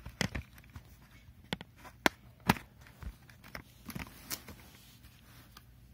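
Handling noise: a scattering of light clicks and taps, the sharpest two about two and two and a half seconds in.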